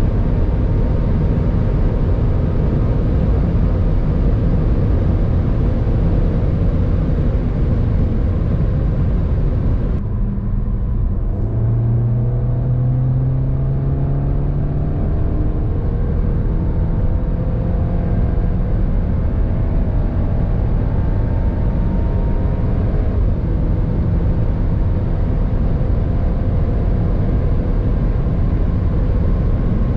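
2022 CUPRA Ateca's 2.0-litre turbocharged four-cylinder under full throttle, heard from inside the cabin over heavy wind and road noise. It first holds high revs near top speed in sixth gear; about a third of the way in the sound changes abruptly and the engine note rises steadily as the car accelerates hard in fourth, with an upshift to fifth about three-quarters of the way through.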